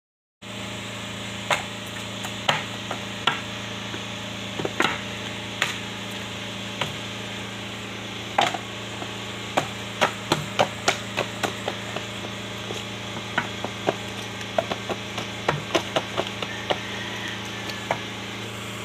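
Hands handling a cardboard phone box, giving irregular taps and knocks, some in quick clusters, over a steady low hum.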